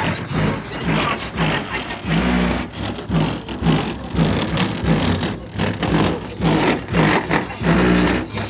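Hip-hop track played very loud through the truck's Rockford Fosgate car-audio system and subwoofers, heard from outside the truck. The heavy bass pulses in a steady beat about twice a second.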